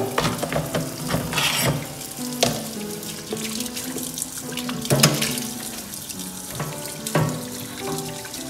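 Tap water pours steadily into a stainless steel sink over thawing lobsters, broken by a handful of sharp, irregularly spaced snips as kitchen scissors cut through the lobsters' hard antennae. Background music with sustained notes plays throughout.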